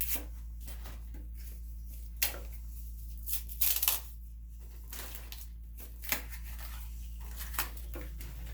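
Scattered light clicks and rustling from hands handling plastic wagon parts and picking at packing tape, with a denser flurry about halfway through.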